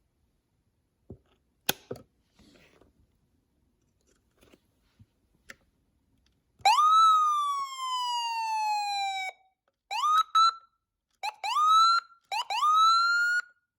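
Whelen 295SLSA1 electronic siren sounding after a few faint clicks: one loud tone that shoots up in pitch and then falls slowly for about three seconds before cutting off. It then gives three short, quickly rising whoops.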